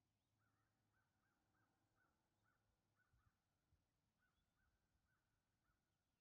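Faint crow cawing over and over, about two caws a second with a short break midway. Two soft low thumps sound near the middle.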